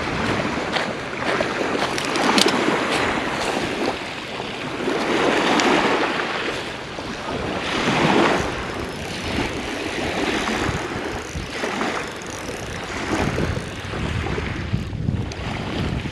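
Small waves washing onto a shingle beach, surging and easing every few seconds, with wind buffeting the microphone.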